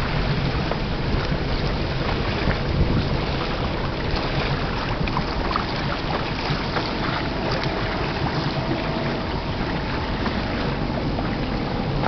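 Boat under way on open water: a steady engine drone with wind buffeting the microphone and water rushing past the hull.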